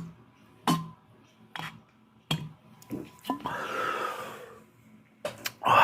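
A person chugging a shotgunned can of beer: about five gulps under a second apart, then a noisy rush of air and a loud exhaled breath near the end.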